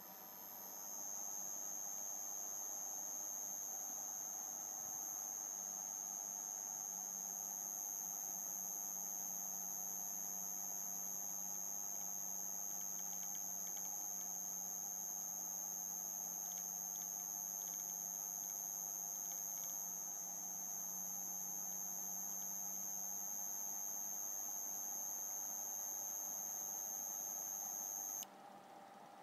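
Prototype 800-watt sine-wave inverter running unloaded: a steady high-pitched whine over a lower hum. The whine cuts off suddenly near the end as the inverter's AC output shuts down.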